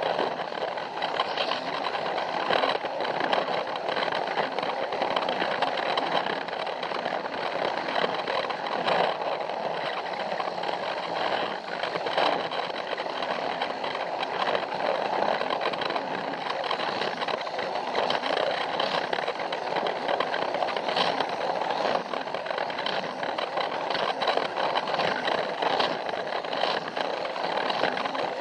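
Plarail toy train running along plastic track: its small battery-powered motor and gearbox whirring steadily, with frequent clicks and rattles as the wheels pass over track joints.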